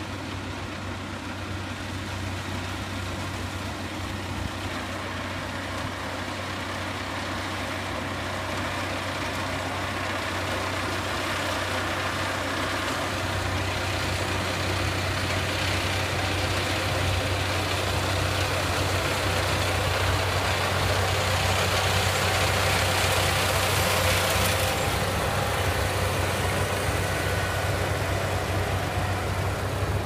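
Kubota PRO588 combine harvester running steadily as it cuts rice, its engine hum growing louder as it approaches.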